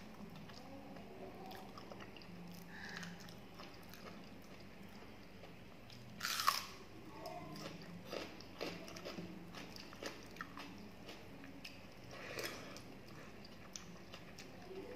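Close-up eating sounds: soft chewing of watered rice (panta bhat) eaten by hand, with one loud crunchy bite about six seconds in and a few smaller crunches after it.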